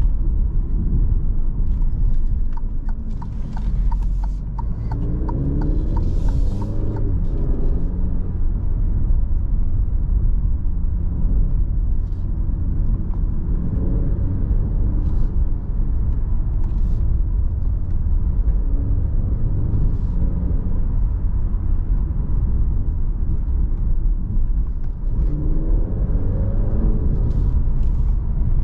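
Cabin sound of a 2022 Alfa Romeo Giulia Veloce's 2.0-litre turbocharged four-cylinder engine driving along with steady road noise, the engine note rising under acceleration a few seconds in and again near the end.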